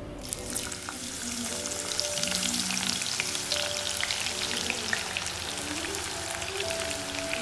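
Sliced onions hitting hot coconut oil in a pot and sizzling, with dense crackling and spitting as they start to fry. The sizzle begins suddenly a moment in and keeps up as more onion is added.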